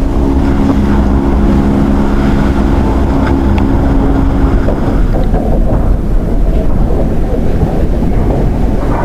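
Great Lakes freighter's steam whistle, the SS Carl D. Bradley's, sounding one long chord-like blast that stops about five seconds in, over heavy storm wind and waves.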